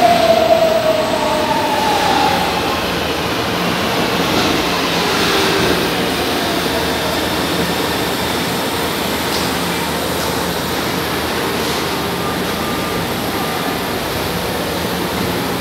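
São Paulo Metro Line 1 trains in an underground station: an electric motor whine falling in pitch over the first two seconds, then a steady rumble of train running along the platform.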